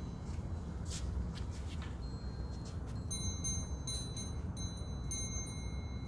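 Steady low room hum with a few soft rustles of cloth as the priest settles a humeral veil over his shoulders. About halfway through, a faint high ringing tone starts, pulsing on and off.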